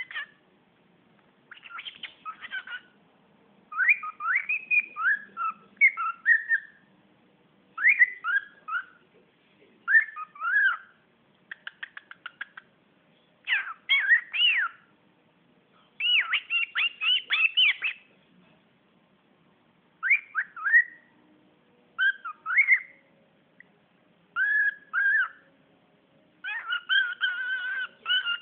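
Cockatiel whistling in short phrases of rising and falling notes, broken by pauses. It makes a quick run of clicks about twelve seconds in and launches into a fast, repeated warbling near the end.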